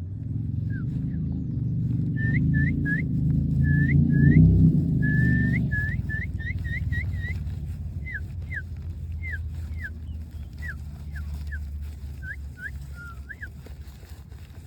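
A quick run of short, high whistled chirps, each a brief upward or downward glide, over a low rumble that swells during the first few seconds and then fades.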